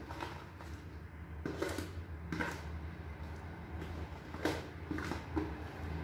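A spoon scraping thick banana bread batter out of a plastic mixing bowl into a metal loaf tin, with several short scrapes and soft knocks over a steady low hum.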